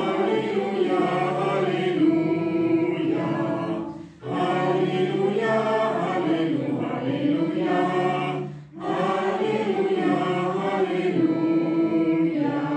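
Several voices singing a hymn together, unaccompanied, in long held phrases with two short pauses for breath.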